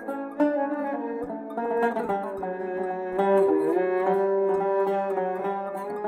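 Turkish tanbur plucked with a plectrum and a bowed long-necked lute playing a melody together in makam hicazkâr, the bowed line holding notes under the quick plucked notes.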